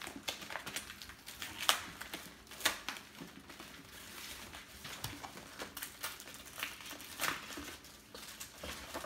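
Crinkling and tearing of a USPS Priority Mail envelope being pulled open by hand, with irregular sharp crackles.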